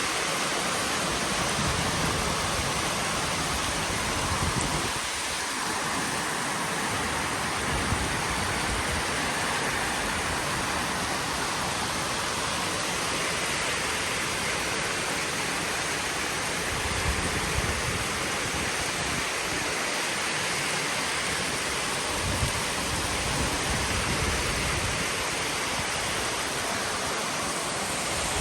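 Steady rain falling, a dense, even hiss, with now and then a brief low rumble.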